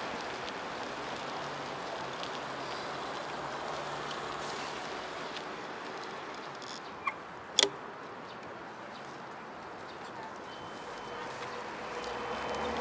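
Steady hum of city traffic across a wide intersection, with two sharp clicks about half a second apart midway through.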